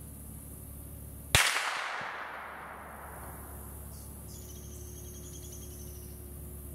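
A 7mm-08 rifle bullet striking a hanging AR500 steel plate: one sudden sharp crack about a second and a half in, loud against the background, with a ringing, echoing tail that dies away over about a second.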